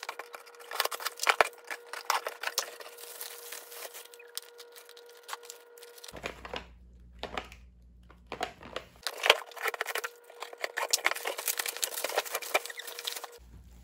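Packaging being handled and opened: dense, irregular crinkling and tearing with many small crackles, in two stretches with a quieter gap in the middle.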